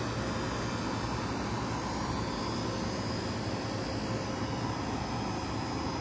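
A 2004 Goodman PHK036 3-ton packaged heat pump running in cooling mode: a steady low hum with an even rush of air from the fan.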